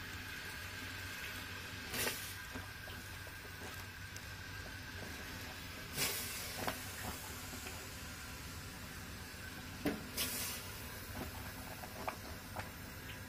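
Handfuls of mushrooms being dropped and pressed into a pot of water: brief wet splashes and rustles about two, six and ten seconds in, over a steady low hiss.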